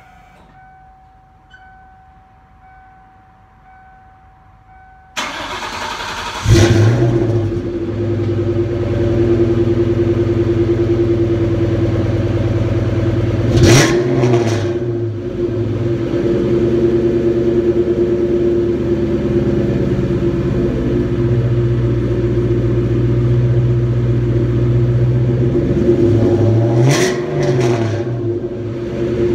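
1997 Ford Mustang SVT Cobra's 4.6-litre four-valve V8, breathing through a BBK X-pipe and Flowmaster 40 Series mufflers, cold-started. The starter cranks about five seconds in, and the engine catches a second later with a loud flare before settling into a steady idle. It is blipped briefly twice, about halfway through and near the end.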